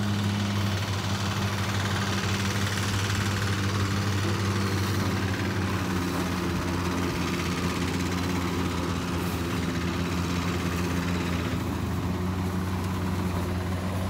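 Engine of a motorised rice thresher running steadily while threshing, a constant low hum as the machine strips the grain from the rice stalks.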